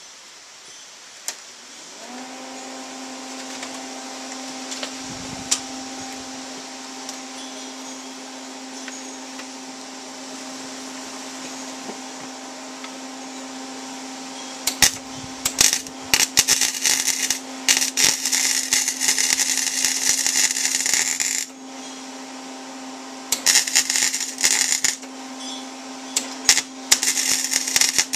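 A grinder motor spins up and runs with a steady whine, then from about halfway grinds down a fresh weld on steel in two long rasping bouts with a short break between.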